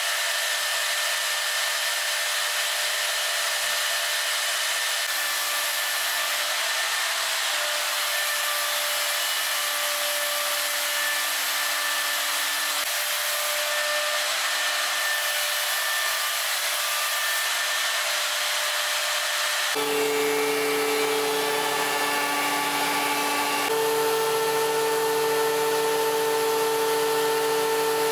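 Woodworking machinery running: the Leehyun Multiwood routing machine's spindle gives a steady, high, hissy whine. About twenty seconds in, the sound switches abruptly to a lower, fuller machine hum with several steady tones.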